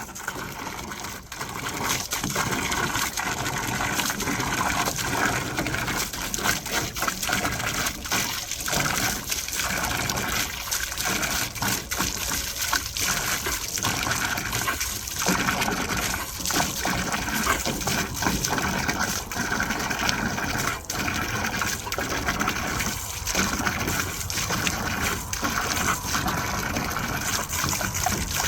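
Running water gushing and splashing without a break, with many irregular short splashes, growing louder about a second and a half in.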